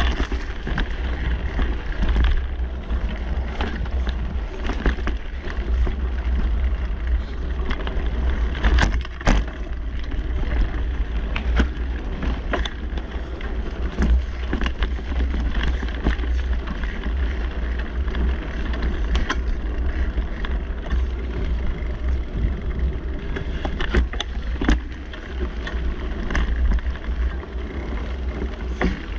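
Mountain bike rolling over a dirt trail: a steady rumble of tyres and wind buffeting on the microphone, broken by frequent sharp clicks and rattles from the bike jolting over bumps.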